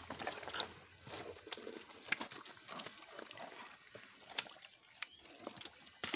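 Live catfish squirming in a net-lined basin as hands sort through them: scattered wet slaps, squelches and small irregular clicks of slimy bodies and net.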